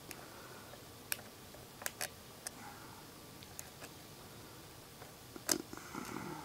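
Scattered small clicks and ticks of a bent paper clip working the pin tumblers inside a trigger lock's keyway, the loudest about five and a half seconds in.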